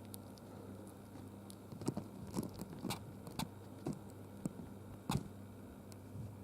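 A hamster sneezing in a bout, about seven short sneezes roughly half a second apart starting about two seconds in, over a faint steady hum.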